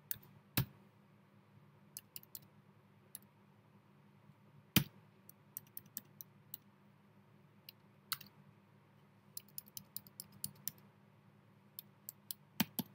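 Computer keyboard keys clicking as text is typed: scattered single keystrokes with quicker runs in the second half, the sharpest about five seconds in, over a faint steady hum.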